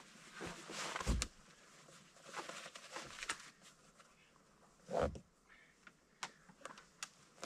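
Clothing and gear rustling as a person dresses and pulls on a boot, with small knocks and two dull thumps, about a second in and about five seconds in.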